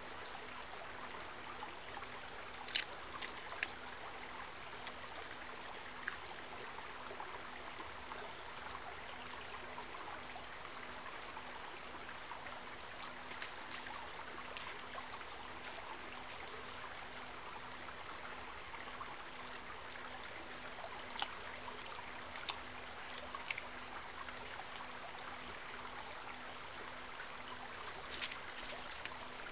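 Small stream running steadily, with a faint steady low hum under it and a few short, sharp clicks scattered through.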